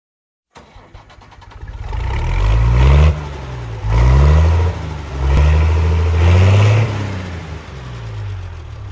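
An engine starts and is revved up and down several times, its pitch rising and falling with each rev.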